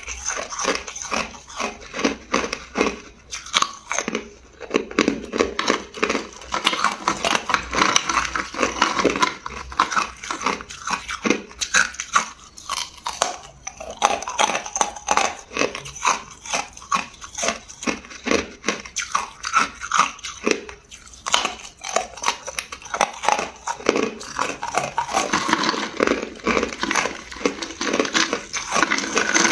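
Hard clear ice being bitten and chewed close to the microphone: a dense, continuous run of sharp crunches and cracks, with a few brief lulls.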